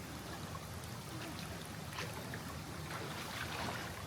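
Mountain stream water running steadily, with a few soft splashes about two seconds in and again near the end.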